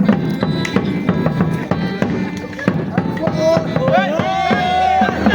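Music with a steady drum beat playing over loudspeakers; a little past halfway the crowd starts shouting and cheering over it.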